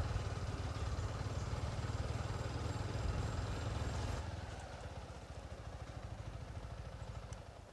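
Motorcycle engine running, then settling about four seconds in to a quieter idle with an even beat that fades near the end.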